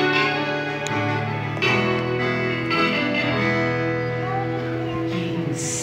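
Slow guitar music: chords struck every second or two and left to ring over held notes.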